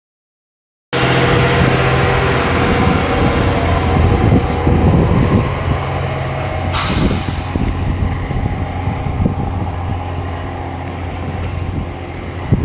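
JR East GV-E400 diesel-electric railcar pulling away from the platform, its diesel engine running with a steady low hum from about a second in. About halfway through there is a short burst of hissing air, and the engine sound eases off as the train draws away.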